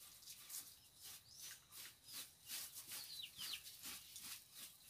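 A broom sweeping a bare dirt floor in quick, even strokes, faint swishes about two to three a second. A few short, high chirps from a bird come in about a second in and again past the middle.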